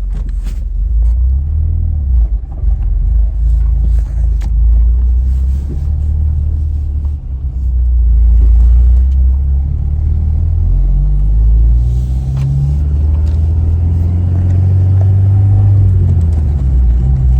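Car engine running under way with a heavy low rumble, its note climbing and then dropping about halfway through and again a few seconds later, as on upshifts. The car is on a test drive right after its clutch was bled and fresh transmission fluid added.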